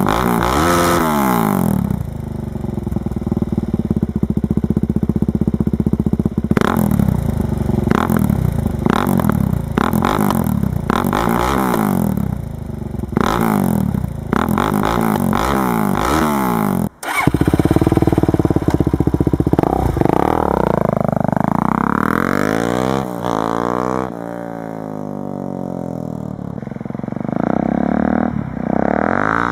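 Suzuki DR-Z400SM single-cylinder four-stroke engine through a twin-silencer exhaust, blipped repeatedly at a standstill, each rev rising and dropping back to idle. After a cut about halfway, the bike is ridden, accelerating through several gear changes, fading with distance, then growing louder as it comes back near the end.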